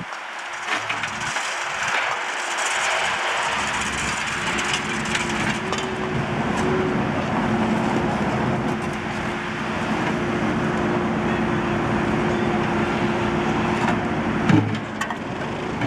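Engine of a JCB backhoe loader running steadily, with a held tone over the machine noise and a few scattered clicks. About fourteen and a half seconds in there is a sharp knock and the tone cuts off.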